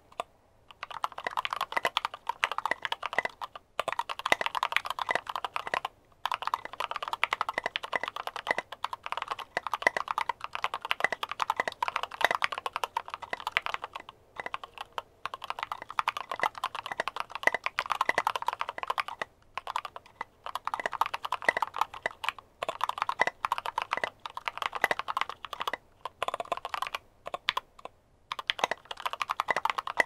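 Continuous typing on a custom mechanical keyboard: lubed Gateron Yellow linear switches on a KBD75 with an aluminium plate and Maxkey SA keycaps. It is a dense stream of keystrokes, broken by short pauses every few seconds.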